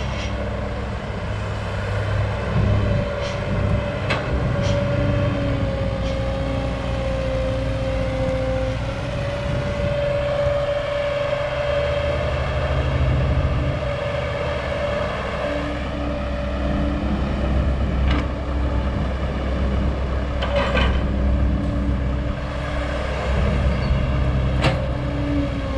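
Old Caterpillar excavator's diesel engine running steadily under load, with a wavering hydraulic whine and a few short knocks as it digs and loads soil.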